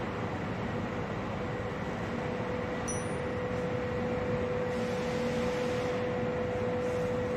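Steady machine hum in a workshop with a constant tone. About three seconds in, a single brief high metallic ping as the laser-cut 5 mm stainless steel part is set down on the work surface.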